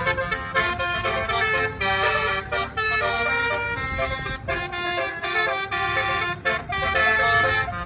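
Tour bus's Basuri 'telolet' multi-note air horn playing a quick tune, its notes changing every fraction of a second with short breaks between phrases. A low engine rumble runs underneath.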